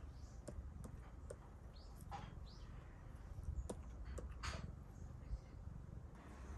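Faint, irregular clicks of a stylus pen tapping on a tablet screen, with a couple of short breathy rushes close to the microphone over a low hum.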